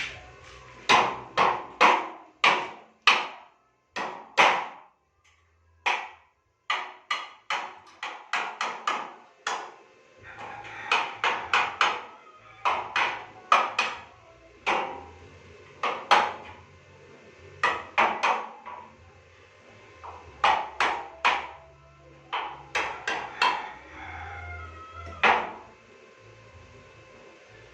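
Hammer blows on metal, dozens of sharp ringing strikes in irregular runs of up to about four a second, with a short pause about five seconds in.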